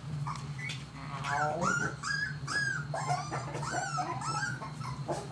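Corgi puppies whimpering and yipping: many short, high-pitched falling cries, several overlapping, over a steady low hum.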